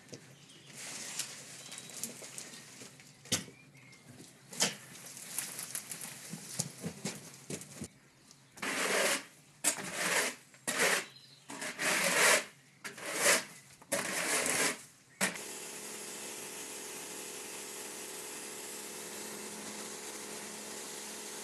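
A long-handled garden tool scraping dead branches and debris across stone paving: light scrapes and clicks at first, then about seven loud strokes. About fifteen seconds in, the sound changes abruptly to a pressure washer running steadily, its pump humming under the hiss of the water jet.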